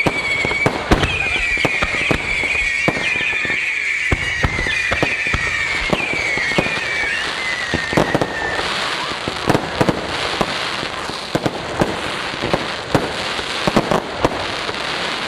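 Fireworks going off: a quick run of bangs and pops, with a high, wavering, slowly falling whistle over the first half, then a dense crackling.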